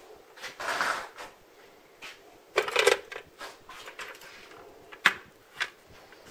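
Short metallic clinks and rattles: a small jangle about half a second in, a louder jangle about two and a half seconds in, and two sharp clicks near the end.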